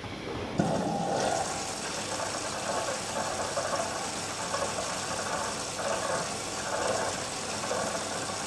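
LG TurboWash front-loading washing machine taking in water: a stream pouring and splashing into the drum, starting with a sudden rush about half a second in and then running steadily with uneven surges.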